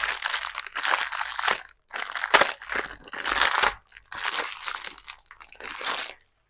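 Plastic pin-type bulb holder being twisted apart and handled close to a clip-on microphone: about five stretches of crunching, crackling plastic scraping with short breaks between them.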